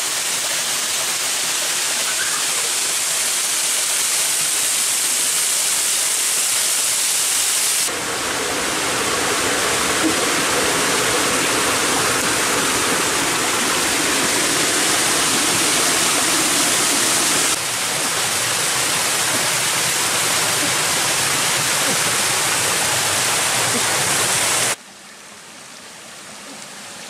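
Rushing water of a rocky stream cascading over boulders, a steady wash of noise whose loudness shifts suddenly about 8 and 17 seconds in, then drops to much quieter about 25 seconds in.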